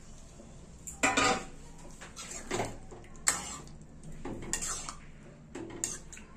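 Metal ladle stirring sambar in a metal pan, clinking and scraping against the pan's sides and bottom in an irregular string of strokes that starts about a second in.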